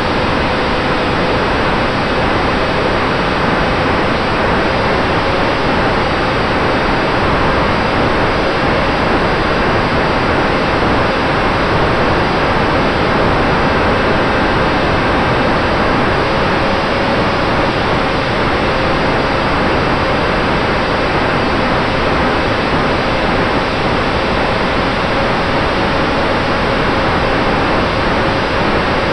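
Steady rushing airflow noise on the microphone of an Eachine Micro Skysurfer RC plane's onboard camera in flight, with a faint steady hum from the electric motor and propeller underneath.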